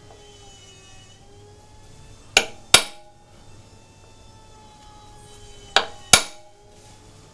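Small hammer tapping a steel decorating punch into the rim of a turned wooden bowl, stamping a mark: two pairs of sharp taps, a lighter tap then a harder one, about three seconds apart, each with a short metallic ring.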